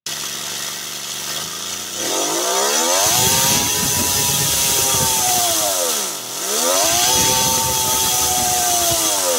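3D-printed inline-three compressed-air engine running with a hiss of escaping air, revving up sharply about two seconds in to a high steady whine. It slows steeply about six seconds in, revs back up, and starts winding down at the end.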